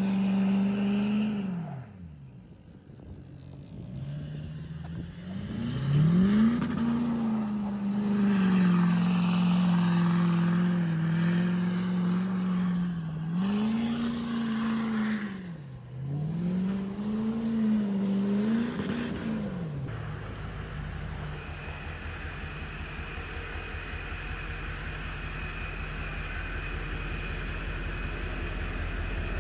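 Duramax turbo-diesel pickup engine revving hard and easing off again and again, its pitch swinging up and down every few seconds while the truck spins in snow. About two-thirds of the way through it gives way to another Duramax diesel pickup idling steadily, with a thin high whine above the idle.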